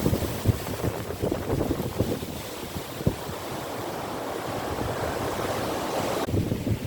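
Strong storm wind gusting against the microphone, with an irregular low rumbling buffeting and a steady rushing.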